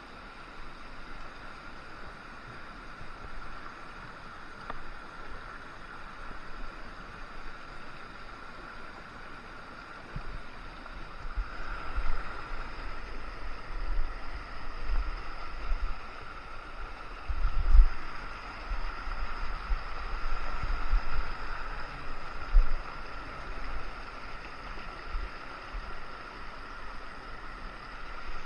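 Mountain stream rushing over boulders, a steady hiss of running water. From about ten seconds in, low thumps and rumbles come and go for several seconds, the loudest a little past the middle.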